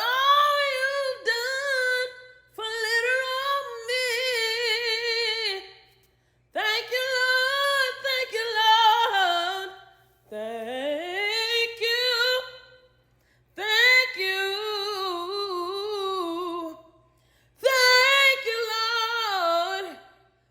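A woman singing solo and unaccompanied, in long held phrases with wide vibrato, broken by short pauses for breath.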